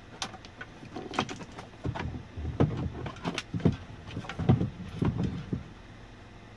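Hands working wiring and parts into place during a CB radio install: an irregular run of clicks, knocks and low thumps, starting about a second in and stopping shortly before the end.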